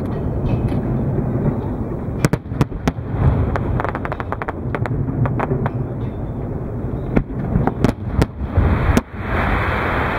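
Fireworks display: a continuous deep rumble of shell bursts with sharp bangs scattered through it, a fast run of crackles about halfway, and a louder hiss near the end.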